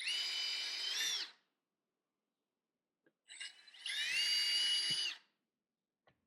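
Power drill boring pilot holes in a wooden beehive frame's top rail, run twice: a short whine of about a second, then a longer one of about two seconds. The holes are pre-drilled for the nails so the half-inch wood won't split.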